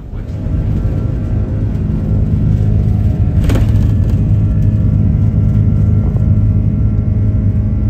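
Steady low vehicle hum, with even layered tones, that swells in the first half second and then holds. There is a single sharp click about three and a half seconds in.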